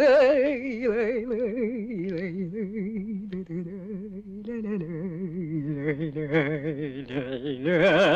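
A woman's voice singing long held notes without words, with a wide vibrato. The pitch steps down about two seconds in and again near the middle, and the voice grows louder near the end.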